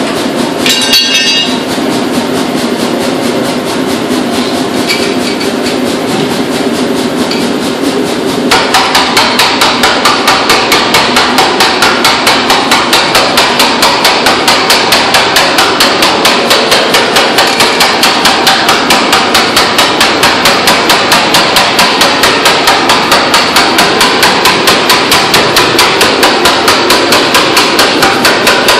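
Forging hammer blows on hot steel: after a steady, noisy stretch, a fast and even rhythm of strikes begins about eight seconds in and keeps going.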